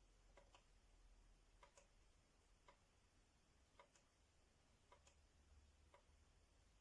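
Near silence with faint ticks about once a second, some of them doubled.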